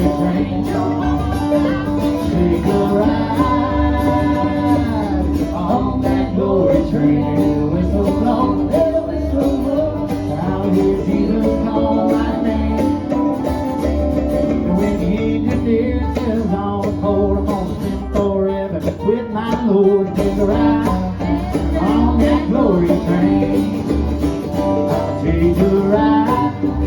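Country and bluegrass band music with acoustic guitar, playing steadily on with a gliding melody line and no transcribed words: an instrumental stretch of the song.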